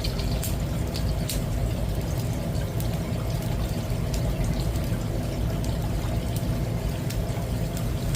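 Prawn crackers frying in hot oil: a steady sizzle with scattered sharp crackles as they puff up, over a steady low hum.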